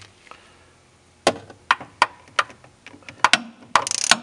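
Hand ratchet clicking in single clicks every third to half second, then a quicker run of clicks near the end, as a thread-repair tap is turned into a stripped spark plug hole in an aluminum cylinder head.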